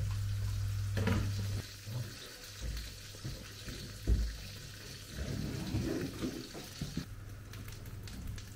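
Food sizzling as it fries in a pan, with a knife cutting and knocking on a wooden chopping board; the loudest knock comes about four seconds in.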